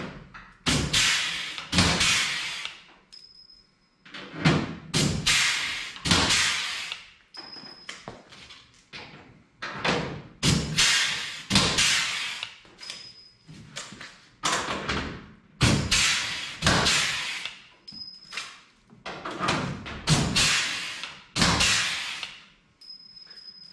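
Pneumatic air riveter setting pop rivets through a race car's fender panel. Each rivet gives a sudden hit that fades off in a hiss of air, one every second or two.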